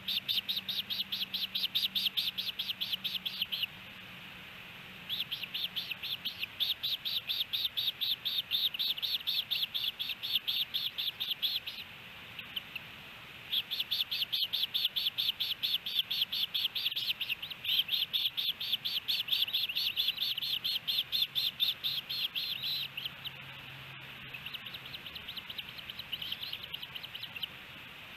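Ospreys at the nest giving rapid series of high, whistled chirps, several a second, in long bouts with two short pauses, fading fainter in the last few seconds.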